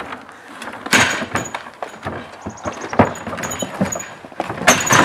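A person climbing out of a plastic wheeled garbage bin: the bin and its lid knock and thud, with louder thumps about a second in, three seconds in and near the end.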